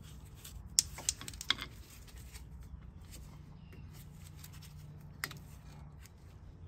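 Sharp clicks and light scraping of a screwdriver prying the rubber dust covers off a rear brake caliper's bolts: three quick clicks about a second in and one more about five seconds in, over a low steady hum.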